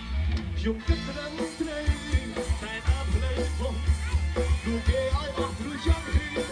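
Live Khmer pop song played loud by a band, with a male singer over a steady drum beat and bass.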